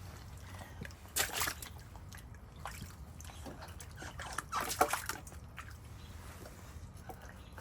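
Standing rainwater in a waterlogged backyard sloshing and splashing as it is disturbed, in two bursts: one about a second in and a longer one around four and a half seconds.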